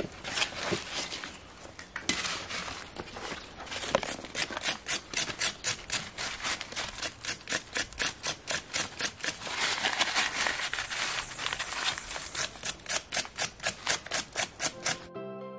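Knife blade scraping the charred skin off a roasted yam in quick strokes, several a second, settling into an even rhythm from about four seconds in.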